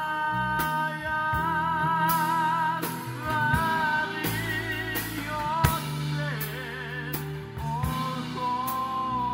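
Live pop band: a man singing long held notes with vibrato, backed by electric bass, keyboard and a drum kit keeping a steady beat.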